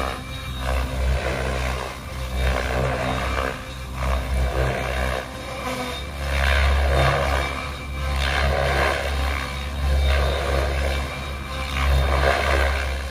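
Align T-Rex 650X radio-controlled helicopter in flight: a steady whine of its electric motor and rotors, made of several pitches at once, swelling louder and softer every few seconds as it manoeuvres.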